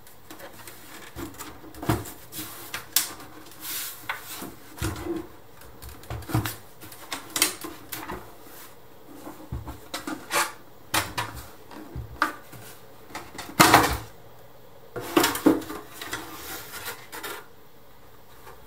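Plastic rear case of a Macintosh Classic II being pried and pulled off by hand: irregular clicks, knocks and scrapes of plastic on plastic, with the loudest knock about two-thirds of the way through.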